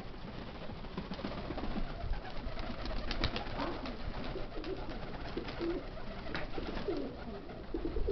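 Domestic pigeons cooing, with a run of short coos in the second half, over a low wind rumble on the microphone.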